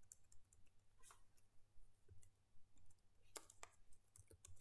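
Faint, irregular computer keyboard keystrokes, a few single clicks and then a quick run of them near the end, as a terminal command is edited.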